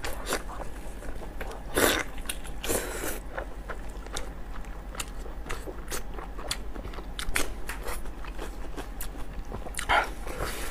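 Close-miked eating sounds of lamb tripe in chili sauce being bitten and chewed: a steady run of small mouth clicks, with a few louder bites about two and three seconds in and again near the end.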